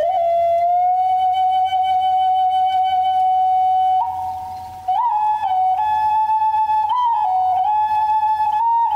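Background music: a solo flute holds one long note, with a short dip in loudness about four seconds in, then moves up and down between a few notes.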